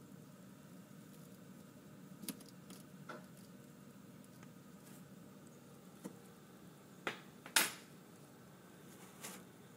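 A handful of short, sharp clicks and taps over a faint, steady low hum; the loudest tap comes about seven and a half seconds in.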